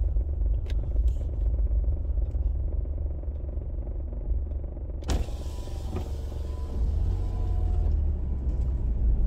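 Car being driven slowly, heard from inside the cabin: a steady low engine and road rumble. About five seconds in there is a sharp knock, then a few seconds of hiss over the rumble.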